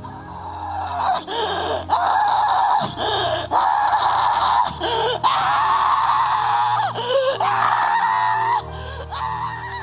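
A woman screaming and wailing into a handheld microphone in several long, wavering cries, starting about a second in, over soft sustained background music.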